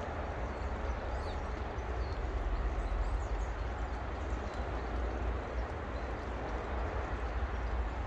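Steady outdoor garden background with a low rumble and an even hiss, and a few faint, short, high bird chirps.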